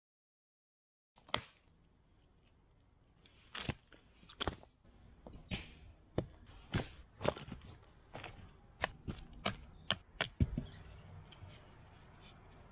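Dry sticks cracking and snapping: about a dozen sharp cracks at irregular intervals, starting about a second in after a moment of dead silence.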